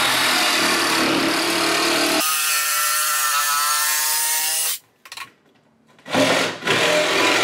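Ridgid Gen5X cordless reciprocating saw with a carbide-tipped nail-embedded-wood blade cutting through thick plywood. The saw takes on a more ringing tone about two seconds in, stops abruptly just before five seconds, and starts cutting again about a second later.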